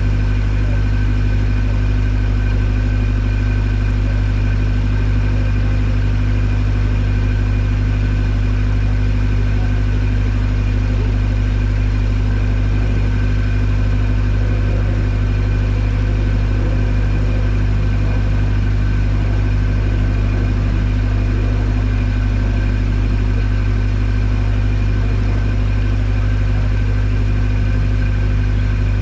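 Boat taxi's engine running at a steady speed, a loud, even drone heard from on board.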